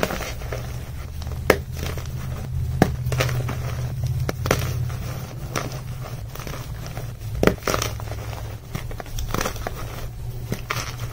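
Blocks of soft pearly gym chalk being squeezed and crumbled by hand into loose chalk powder: a continuous crunching crackle, with a few sharp cracks as the blocks break apart. A steady low hum runs underneath.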